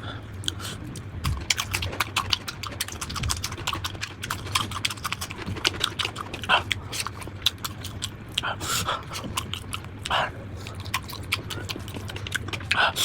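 Close-up crunchy eating: many quick, crackling clicks of biting and chewing crisp fried chicken, over a steady low hum.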